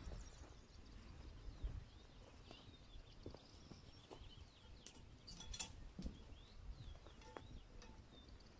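Faint small birds chirping in short repeated calls, with a few light clicks and taps around the middle.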